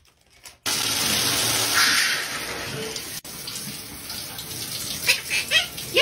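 Shower water running: the spray starts suddenly just over half a second in and keeps on steadily. It breaks off for an instant about three seconds in, then carries on quieter, with a few sharp clicks near the end.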